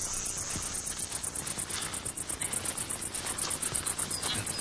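Insects chirping in a fast, even, high-pitched pulse, like a cricket chorus in the bush.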